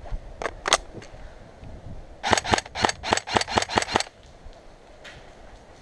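Airsoft M4-style rifle firing: two sharp shots within the first second, then a quick string of about ten shots around two to four seconds in.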